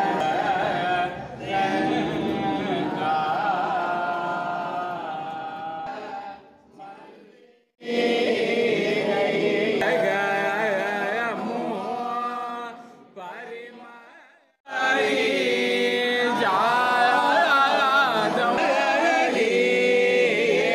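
A group of voices chanting a devotional hymn together, with wavering sung pitch lines. The chant fades and breaks off twice, about eight and fifteen seconds in, then resumes.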